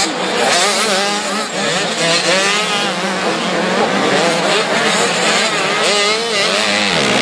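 Several motocross bikes revving hard together on the track, their engine notes overlapping and rising and falling over and over as the riders work the throttles over the jumps.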